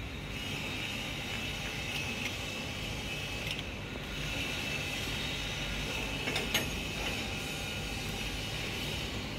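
Steady mechanical drone with a hiss, and a couple of short metallic clicks as a pressure-gauge fitting is unscrewed by hand from an excavator's hydraulic control valve.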